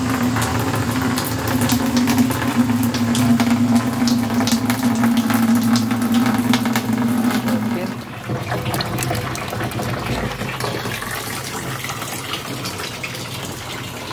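Water from a garden hose running through a guttering downpipe and splashing into an empty plastic water butt. A steady low hum sits under the splashing. About eight seconds in the hum drops away, leaving a quieter running and splashing.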